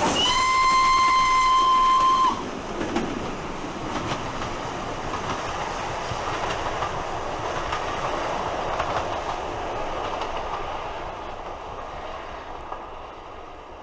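A train sounding one long single-pitched whistle for about two seconds, then running on with a steady rumble and the clickety-clack of wheels over rail joints, fading away near the end.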